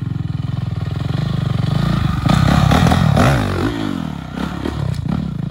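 Dirt bike engine running with a rapid steady pulse, then revved harder about two seconds in as the bike leaves the ramp. The pitch sweeps up and down while the bike is airborne, then settles back to a steadier run near the end.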